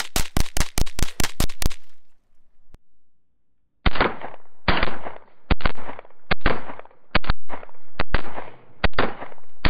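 A rapid string of about nine .22 Long Rifle shots fired in under two seconds. After a short pause comes a slower, irregular run of louder, muffled bangs, each with a long tail.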